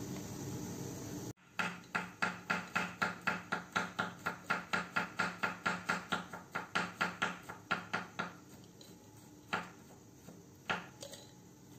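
A steady hiss cuts off about a second in, followed by a quick run of sharp knocks, about four a second for some seven seconds, then two single knocks.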